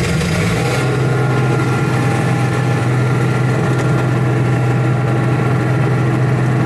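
RV's onboard generator running steadily just after starting: a loud, even hum with a strong low tone.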